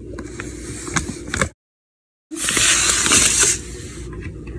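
Handling noises: small clicks and rustling, then a complete drop-out under a second long, then about a second of loud rustling. Light clicks of a metal spoon against a ceramic mug follow near the end.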